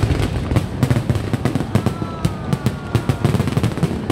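Fireworks going off: a dense, rapid crackle of many small bursts, over a low rumble of heavier bursts.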